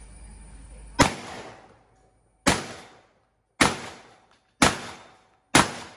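Shotgun firing five rounds of ZALA IPSC Line 9-pellet buckshot in quick succession, about one shot a second. Each shot is a sharp crack that dies away in about half a second to a second.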